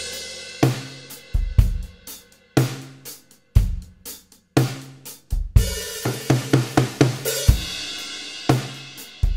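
Drum kit playing a slow rock groove with bass drum and cymbals. The 6.5x14-inch steel snare is tuned all the way down and deadened with a loop of gaff tape, giving a low, dead, beefy snare sound.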